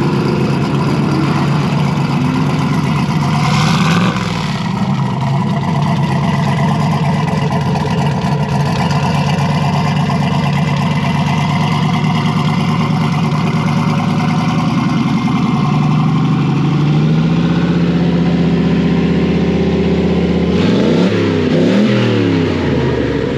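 Car engine running steadily. Its pitch rises and falls as it revs about four seconds in and again near the end.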